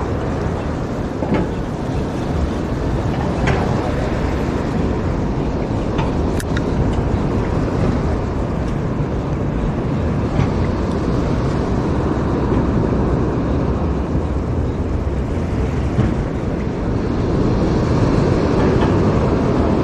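Steady wind buffeting the microphone over ocean wash at the pier, growing a little louder near the end, with a few faint clicks.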